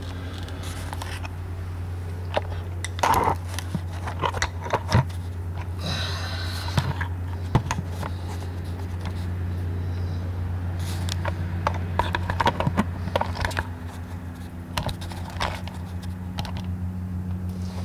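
Scattered clicks, clanks and short scrapes of metal tools and the camera being handled and set down under a car, over a steady low hum.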